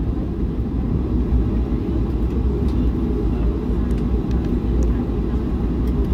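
Airliner cabin noise while the plane taxis: a steady low rumble of the jet engines and the rolling aircraft, heard from inside the cabin.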